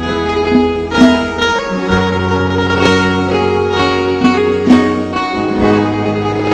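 Instrumental intro of a Khmer pop song, before the singing starts: sustained bass notes changing every second or two under plucked notes and held melody lines.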